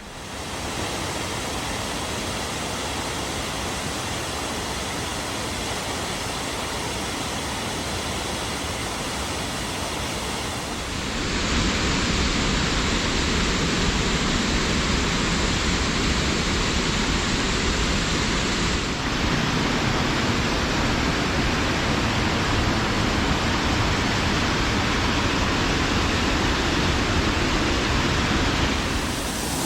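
Waterfall on the Little Mashel River, water pouring and splashing in a steady, unbroken rush; it steps up louder about a third of the way in.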